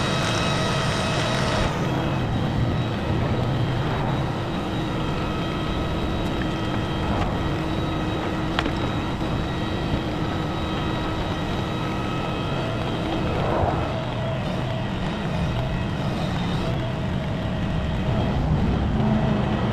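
Heavy equipment engine running steadily at a constant speed, a continuous drone with a steady whine over it, with a single sharp click about halfway through.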